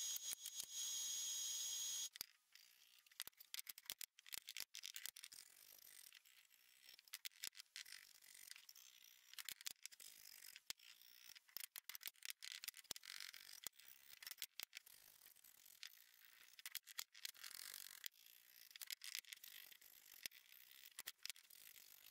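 Pencil scratching on a wooden board as lines are drawn across its face: faint, irregular scratches and small clicks. For the first two seconds a shop machine's steady high hiss runs, then cuts off.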